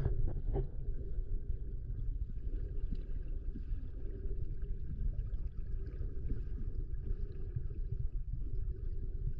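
Muffled underwater rumble of moving water around a camera held just below the surface of a shallow river, with a few knocks in the first second.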